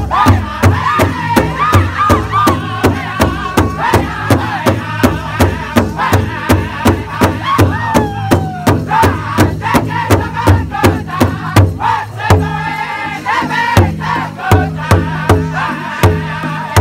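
Powwow drum group: several men singing high-pitched chant together over a steady, even beat struck in unison on one large hide-covered drum. The singing changes about twelve seconds in, with lower voices coming in.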